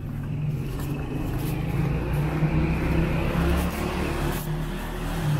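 A running motor gives a steady low hum, swelling slightly and easing off without stopping.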